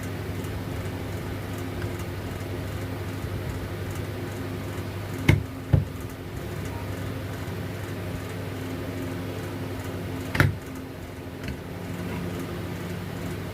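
Three sharp knocks from handling tools or parts: two about half a second apart in the middle, then one more near the end, over a steady low hum.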